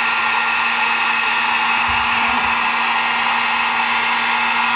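Harbor Freight heat gun running steadily, blowing hot air to shrink heat-shrink tubing over a soldered wire connection: an even blowing rush with a constant low hum.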